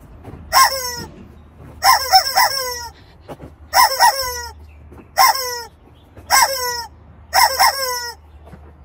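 Rubber screaming-chicken toy squeezed by hand, giving short squawks that each drop in pitch at the end, sometimes single and sometimes in quick runs of two or three.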